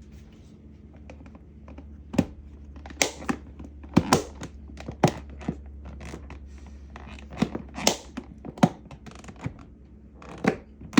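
Kitchen items being handled: about a dozen irregular sharp knocks and clatters over a steady low hum.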